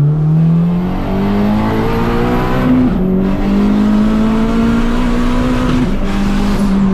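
Swapped, turbocharged Honda Brio engine at full throttle under hard acceleration, heard from inside the cabin. The engine note climbs in pitch through each gear and drops back at each flat-foot shift, where rolling anti-lag and flat-shift cut the power without lifting.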